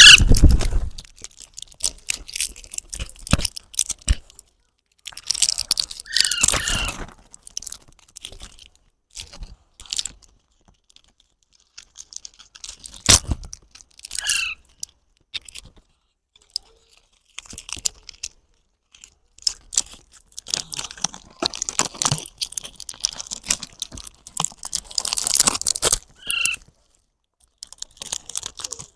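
Baby parrot giving a few short chirps, spread through the stretch, among bursts of crunching and rustling noises.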